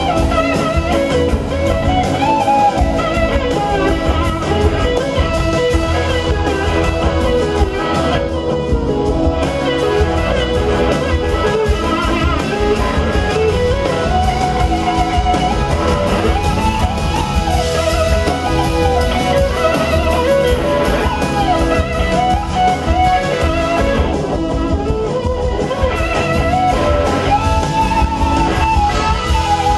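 Live blues-rock band playing, led by an electric slide guitar solo on a Gibson SG: a gliding, singing lead line over bass and drums.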